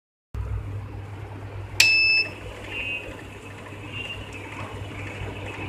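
Xtraon GX-902HD currency counting machine giving a single short high beep, with a click, about two seconds in, as it is powered on, over a low steady hum.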